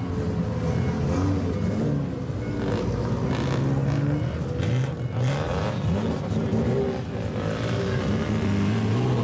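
Straight-piped exhausts of lowered old cars revving as they drive slowly out, one after another. The engine note rises and falls in repeated blips.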